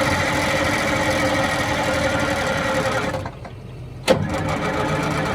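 Starter cranking the diesel engine of a 1971 Insley excavator, a steady whirring that cuts off about three seconds in. A second crank starts with a sharp clunk about a second later. The engine turns over without catching.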